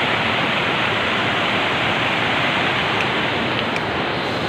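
Mountain river rushing over rocks in white-water rapids: a steady, unbroken rush of water.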